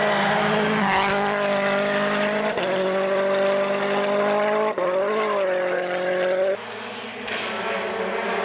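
World Rally Cars' turbocharged four-cylinder engines running hard on a snow stage, the engine note held high and steady, with a brief dip and rise in pitch about halfway through. About two-thirds in, the sound drops abruptly to a quieter engine that grows louder as another rally car approaches.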